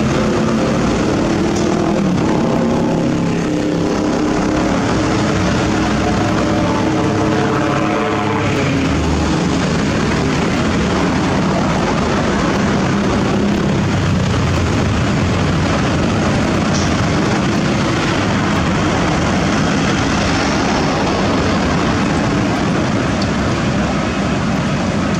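Sakai ER501F road milling machine grinding off the old asphalt surface: a loud, steady diesel drone and rumble with a dense hiss from the cutting work. In the first several seconds an engine tone climbs a little, then the din holds even.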